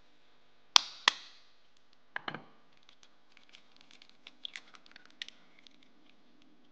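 An eggshell knocked sharply twice against the rim of a glass mixing bowl, with a duller crack about a second later as the shell breaks. Faint crackling and ticking of the shell follows as it is pulled apart and the yolk is passed between the halves.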